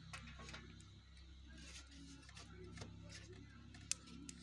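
Faint, scattered light clicks and taps as hands work at the top of a small metal sawdust stove, over a low steady hum. One sharper click comes about four seconds in.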